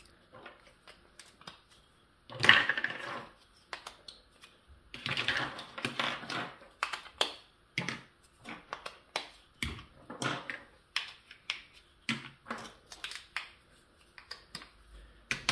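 Hard plastic toy pieces clicking and clattering on a wooden tabletop as they are sorted and stood upright, in irregular sharp clicks. There is a louder rattling spell about two and a half seconds in and another around five to seven seconds.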